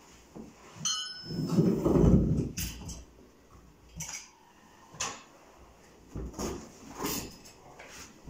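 Carpet fitters working the carpet edge along the skirting board by hand: irregular knocks, taps and scrapes of tools and carpet. A brief high ring about a second in, and a heavier dull thud and shuffle around two seconds in, the loudest sound.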